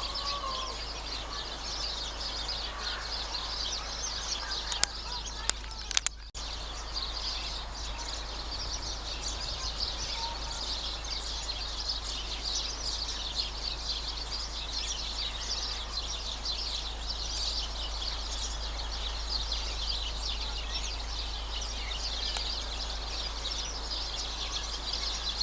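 Many small birds chirping and twittering together in a continuous dense chorus. A few sharp clicks come about five to six seconds in.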